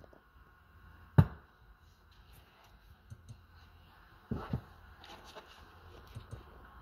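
Plastic clicks of the Audi MMI rotary controller and touchpad being pressed and turned: one sharp click about a second in, a quick pair of clicks past the middle, and faint ticks between.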